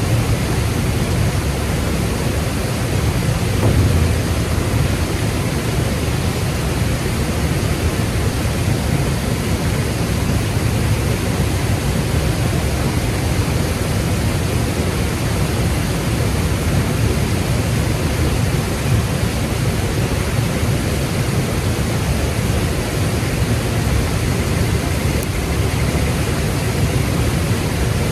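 Steady rush of a flowing mountain stream mixed with falling rain, an even hiss with a heavy low rumble underneath.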